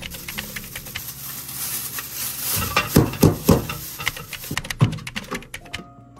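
Cooking in a pan: a utensil stirring and knocking against the pan over a sizzling hiss, with a few sharp knocks about three seconds in. Soft background music comes in near the end.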